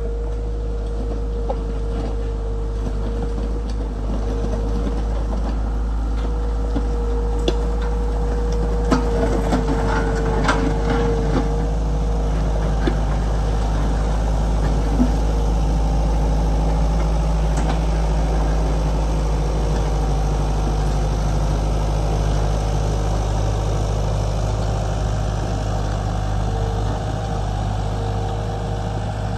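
Diesel engine of heavy earthmoving equipment running steadily, with a constant whine over the drone. Scattered metallic clanks come between about 7 and 15 seconds in.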